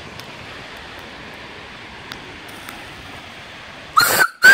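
Steady hiss, then about four seconds in a Lunkenheimer steam whistle on a small fire-tube boiler, pulled by its cord, gives one short blast on a single clear note and starts a second.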